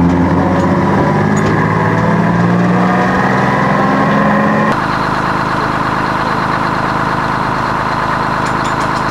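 Vintage tram running along the line, heard from on board as a steady motor hum with running noise. About halfway through the sound cuts to a different steady mechanical drone, from a tram standing at a stop.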